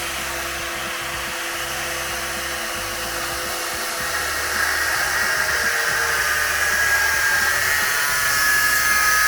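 Angle grinder cutting through an exhaust pipe taken from the original silencer, running steadily. About halfway through it grows louder and a higher ringing note comes in as the disc bites into the tube.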